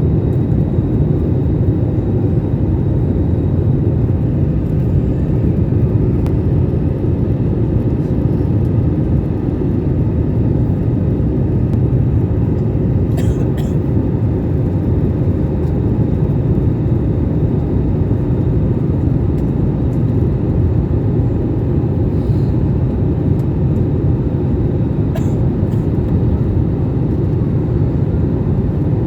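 Airliner engines and airflow: a steady low rumble that holds level, with a few faint ticks.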